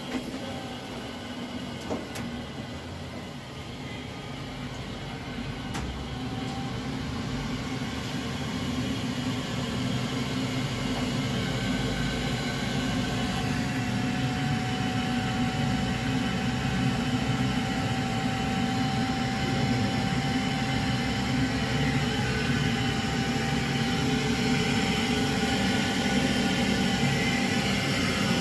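Alarko Aldens condensing combi boiler running with its combustion fan and burner firing: a steady rumbling whoosh that grows gradually louder as the boiler is turned up to maximum. A thin steady tone joins about halfway through.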